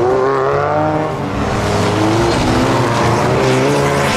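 Engines of several off-road racing buggies and trucks revving hard on a dirt track, their pitch rising and falling as they accelerate.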